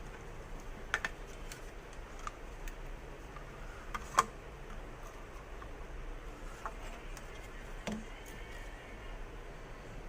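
Scattered light clicks and taps of small phone parts being handled and fitted together, with a sharper click about a second in and another about four seconds in, over a faint low hum.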